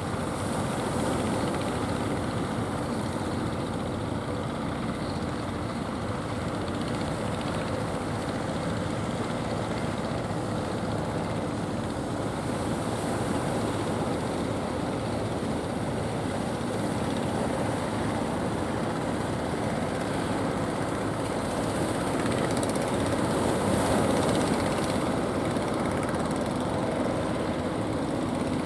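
Fishing boat engines running steadily, with a slight swell in loudness a little after the middle.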